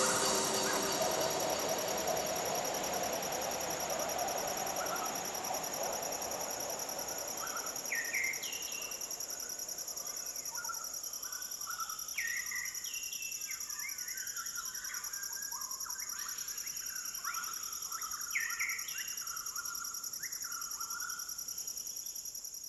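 Nature ambience: a steady, high-pitched drone of insects such as cicadas or crickets, joined from about eight seconds in by birds calling with short whistles and chirps. It fades out at the very end.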